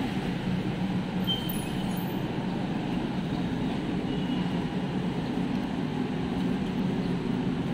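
Steady city street background: a low, even rumble of traffic, with two faint short high tones, one early on and one about four seconds in.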